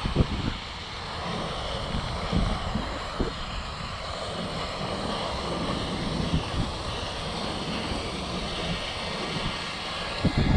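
Wind buffeting the microphone: a steady rushing noise with irregular gusts of low rumble.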